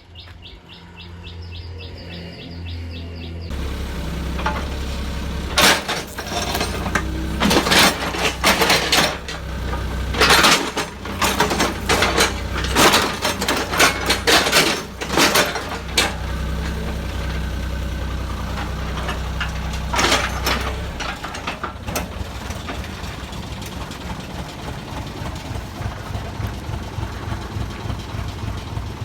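Kobelco mini excavator's diesel engine running, with a run of loud cracks and crunches of something being crushed, from about five seconds in to about sixteen, and one more crack a few seconds later. Birds chirp before the engine comes in.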